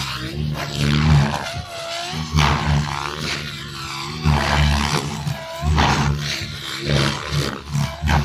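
Goosky electric RC helicopter flying 3D aerobatics: rotor blades whooshing, with a whine that swoops up and down again and again as the rotor is loaded and unloaded through the manoeuvres.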